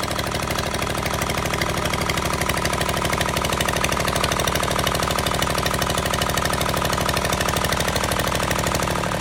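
Two-cylinder engine of a 9 kVA generator running steadily with a rapid, even beat. It is running with a misfire, which the owner suspects comes from a valve or an injector fault.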